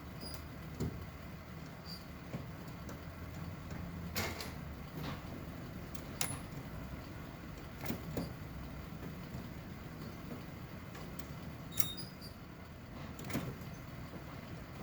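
Scattered light clicks and knocks of hand work on a car's push-button transmission shift cable, over a steady low hum.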